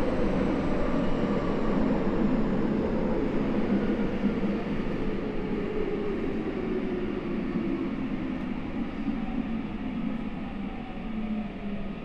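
Saitama Railway 2000 series electric train running on Mitsubishi IGBT VVVF inverter drive, its motor whine gliding steadily downward in pitch over rail rumble as the train slows.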